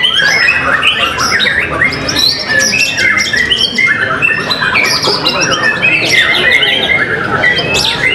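White-rumped shamas singing at full power: rapid, varied whistled phrases from several birds overlapping without a break.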